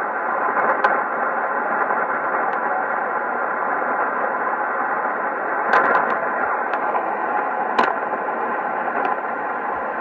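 Shortwave receiver audio of a weak AM signal on 3375 kHz in the 90-metre tropical band, barely above the noise: steady hiss and crackle from the radio's narrow audio band, broken by sharp static crashes, the loudest about six and eight seconds in.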